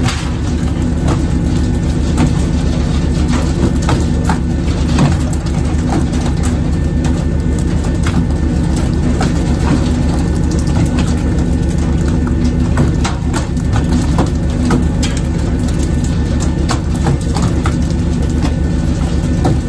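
Fishing boat's engine droning steadily, with irregular knocks and slaps of skipjack tuna landing and flapping on the wooden deck as they are jerked aboard on pole and line.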